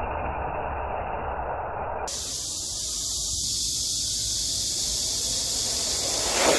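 Steady rushing hiss with no tone in it. About two seconds in it changes abruptly to a thinner, higher hiss, which swells briefly louder near the end.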